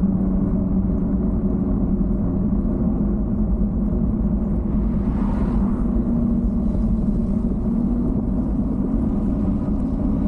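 The bike's motor running steadily at a low cruising speed, a constant low hum over wind and road rumble on the handlebar-mounted microphone, with a brief hiss about five seconds in.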